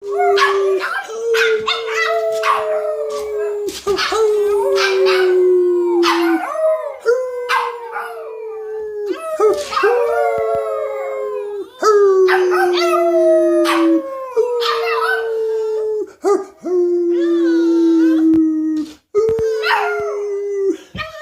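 Boston terrier howling, joined by a second dog. Long howls are held on one note and sag slightly, over and over with short breaks between, while higher howls slide down in pitch over them.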